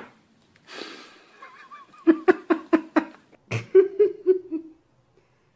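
A person laughing in quick, evenly spaced bursts, about five a second, then laughing again more softly just after. A short hissing noise comes shortly before the laughter.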